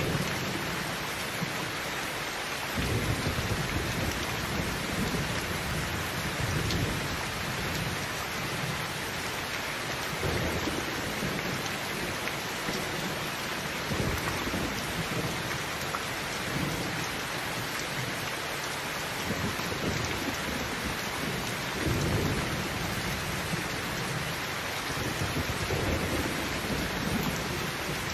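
Heavy rain pouring steadily, with low rumbles of thunder swelling and fading several times.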